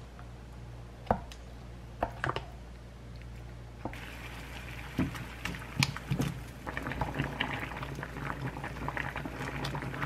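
A few sharp clicks of a wooden spoon against a glass measuring cup as a thick chili sauce is stirred; then, about four seconds in, water bubbling at a boil in a frying pan, with knocks and splashes as thick bunmoja glass noodles are dropped in and stirred with chopsticks.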